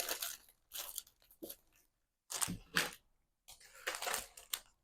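Paper packaging crinkling and rustling in several short bursts as a pack of cardstock is handled and unwrapped.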